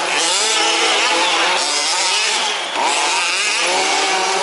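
Several 1/5-scale remote-control trucks' small two-stroke petrol engines racing together, revving up and down over one another, with pitches rising and falling as they accelerate and back off.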